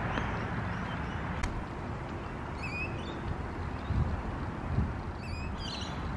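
Birds chirping outdoors, two short bursts of quick notes, about halfway through and again near the end, over a steady low rumble with two soft thumps between them.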